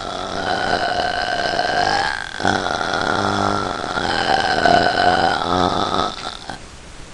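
A long, drawn-out deliberate burp that breaks off briefly about two seconds in, carries on, and stops about six seconds in.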